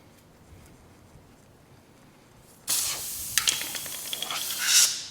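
Pressurised air hissing out of a screw puncture in a tubeless mountain bike tire's sidewall, starting suddenly about halfway through as the screw is pulled. It swells briefly, then dies away at the end as an air stopper is pushed into the hole.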